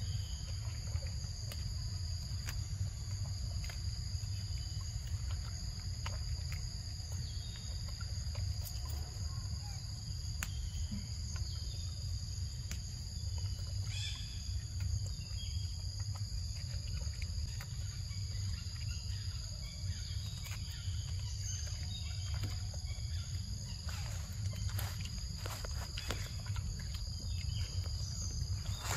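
Insects buzzing steadily on one high tone, over a constant low rumble, with scattered small clicks and rustles that come more often near the end.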